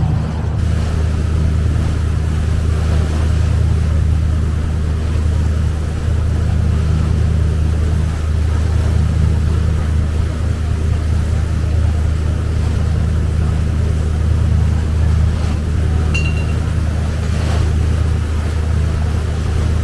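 Boat engine running steadily on board: a loud, even low drone.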